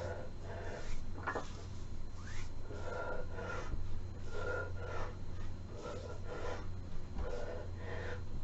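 A person breathing hard in short, quick breaths, often in pairs, through a set of barbell exercise. A steady low hum runs underneath.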